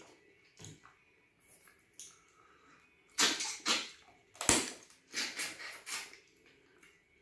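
A person eating soup with starch and fish close to the microphone: a run of short mouth noises between about three and six seconds in, after a quiet start.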